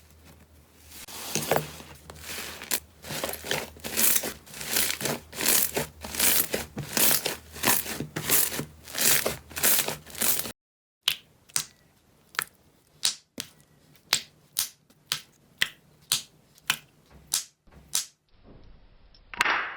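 Slime being pressed and squeezed by hand, with crunchy crackles about twice a second. After a sudden cut about ten seconds in, it changes to sharper, separate pops at a slower pace.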